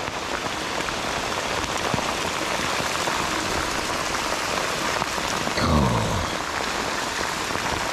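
Heavy rain hissing steadily on the river surface and bank vegetation. About six seconds in there is a brief low hum that falls in pitch.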